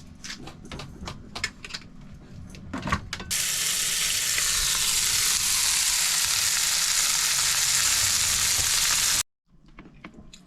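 A few clicks and knocks of utensils, then food dropped into a hot pan sizzling: a loud, steady frying hiss that starts suddenly about three seconds in and cuts off shortly before the end.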